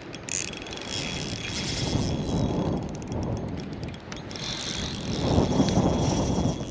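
Fishing reel being cranked with a light, fast mechanical clicking as line is wound in, over gusting wind rumble on the microphone.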